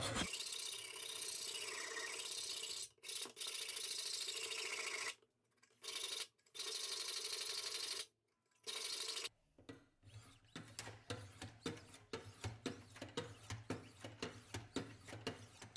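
A push dagger's edge being sharpened with the stones of a Wicked Edge Go guided sharpener, worked by hand. A steady scraping in the first half is cut off abruptly several times. The second half is quick, separate strokes at about two or three a second.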